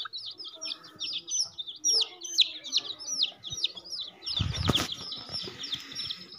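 Young chicks peeping continuously, a quick run of short, high, falling cheeps. About four and a half seconds in comes a brief rustling scuffle as a chick is caught by hand.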